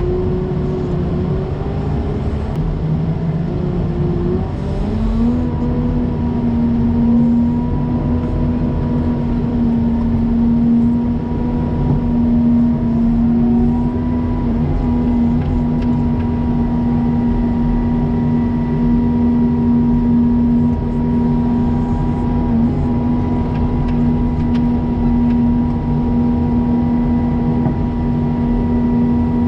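Engine of a snow-plowing vehicle running steadily under load. Its pitch wavers in the first few seconds, rises about five seconds in, then holds even.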